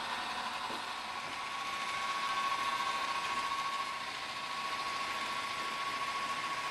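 Model railway diesel locomotive pulling a short freight train along the track: a steady running whir with a thin, steady high whine.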